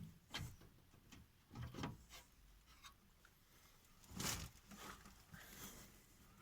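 Near silence, broken by about four faint, brief rustles or knocks.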